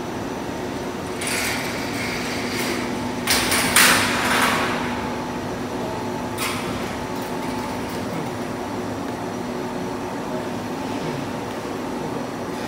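Steel gate and doors of a stainless steel goods hoist being closed by hand: a metallic rattle, then a cluster of loud clangs about three to four seconds in, and a single sharp click of the door latch at about six and a half seconds, over a steady low hum.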